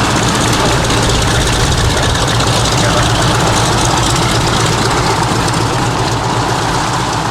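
Radial piston aero engines of a warbird running steadily at a low, even power, with no rise or fall in pitch.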